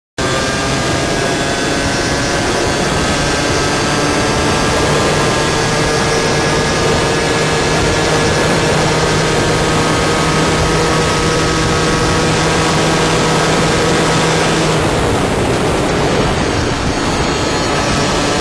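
Beta RR50 supermoto's 50cc two-stroke engine running at fairly steady revs while riding, with a thick rush of wind noise on the microphone. The engine note changes about fifteen seconds in.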